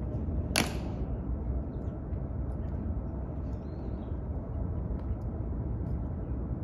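Tomb guards marching on the stone plaza: one sharp click of a step about half a second in, then a few faint clicks, over a steady low outdoor rumble.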